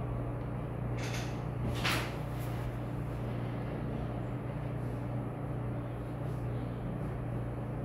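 Steady low hum of room background, with two brief noises about one and two seconds in, the second one louder.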